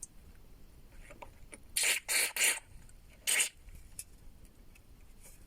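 Aerosol lubricant can sprayed in short hissing bursts: three close together about two seconds in and a single one about a second later.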